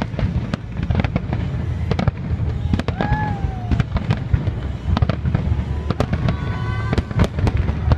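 Fireworks display: a dense, continuous rumble of booming shell bursts, with many sharp cracks and crackles on top.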